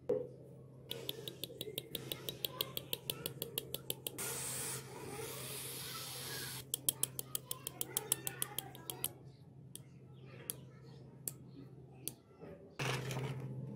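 Rusty needle-nose pliers being worked open and shut: two quick runs of sharp metal clicks, with a steady hiss between them and a few separate clicks later. A low hum runs underneath and grows louder near the end.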